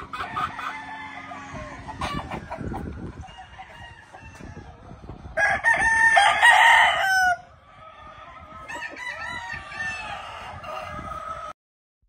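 Gamefowl roosters crowing, several calls one after another. The loudest crow comes about halfway through and lasts nearly two seconds, with fainter crowing after it. The sound cuts off suddenly near the end.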